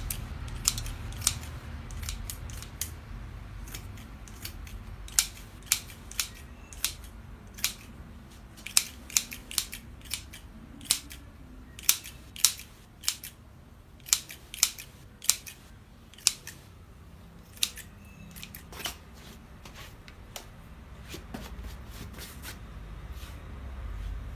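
Scissors snipping through sprigs of fresh foliage, trimming it into shape: a long run of sharp, irregular snips, thickest in the middle and thinning out toward the end.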